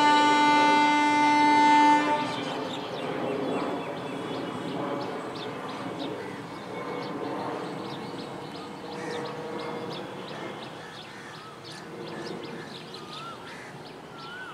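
An approaching EMU local train sounds its horn, a loud steady blast lasting about two seconds at the start. After the horn stops, the train's running rumble on the rails continues at a lower level.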